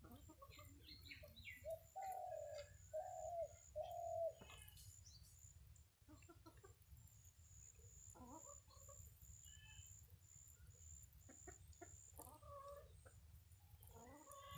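A chicken clucking: three loud drawn-out clucks in a row about two seconds in, then fainter clucks and chirps on and off.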